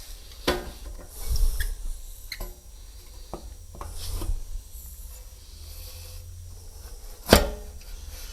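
Scattered metal clicks and knocks with light scraping as a front wheel's axle is seated into the fork dropouts and its disc brake rotor slides into the caliper; the loudest knock comes near the end.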